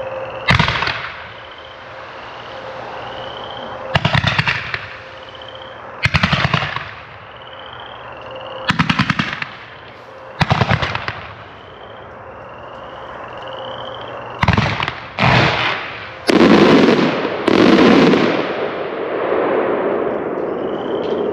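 Consumer fireworks going off in a finale sequence of single shots: a string of sharp bursts, each a rapid run of crackling pops. They come a few seconds apart at first, then faster and louder in the last third, where they run together.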